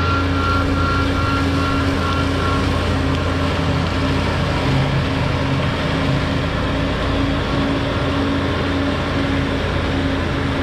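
Bobcat S590 skid-steer loader's diesel engine running steadily under load with a 66-inch Brushcat rotary mower, a deep drone with a steady hydraulic whine. A higher whine fades out about three seconds in.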